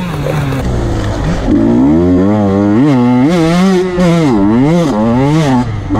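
Dirt bike engine revving up and down as it is ridden along a trail. The pitch rises and falls several times in quick succession as the throttle is worked.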